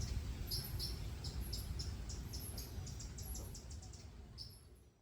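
Nature ambience of high, rapid chirping, typical of crickets, over a low rumble. The chirping thins out after the first second, and the sound fades out near the end.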